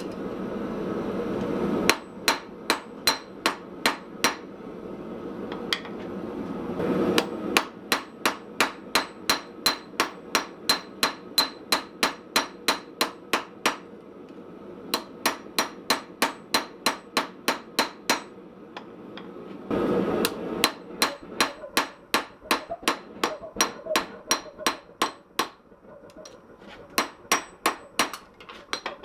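Hand hammer forging hot steel on a small Austrian/German pattern anvil: runs of ringing blows at about two to three a second, broken by short pauses. A steady rushing noise fills some of the pauses between runs.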